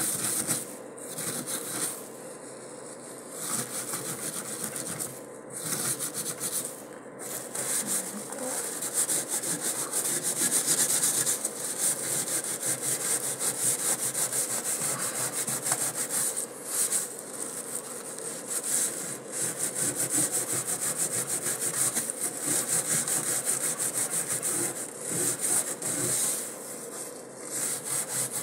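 Brisk back-and-forth scrubbing on the drain rim and strainer of a stainless steel sink, many rapid rasping strokes a second, broken by a few short pauses near the start and one near the end.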